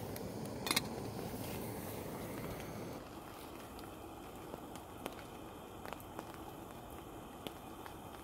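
Small gas camping stove hissing steadily under a metal cooking pot, with a sharp metallic clink under a second in as the lid goes onto the pot. At about three seconds the stove sound stops and a quieter background follows, with scattered drips of rainwater falling from a tarp onto the leaves.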